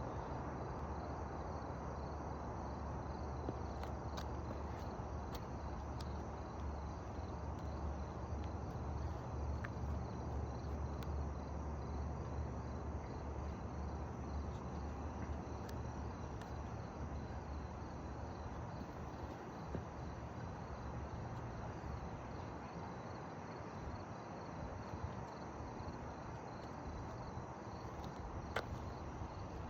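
Crickets chirring steadily in the background, with a low rumble underneath that fades in the second half and a few faint clicks.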